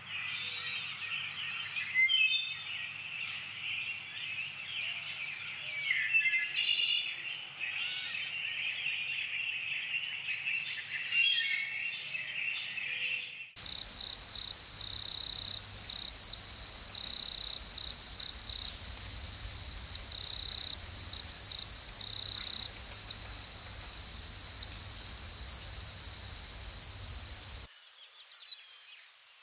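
Nature ambience: a dense chorus of many birds chirping and whistling. About halfway through it cuts abruptly to a steady high-pitched drone over a low rumble. Near the end it cuts again to high pulsed calls and quick falling whistles.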